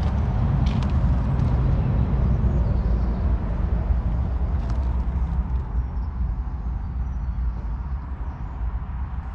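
The Claas Arion 650's 6.8-litre six-cylinder diesel engine idling with a steady low rumble, growing a little quieter in the last few seconds.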